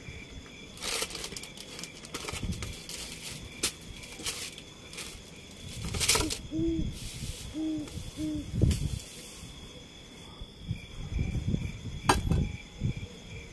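Objects being handled and set down on a wooden table, with packets rustling and several sharp knocks, over the steady pulsing chirp of night insects. Near the middle come three short, low hooting notes.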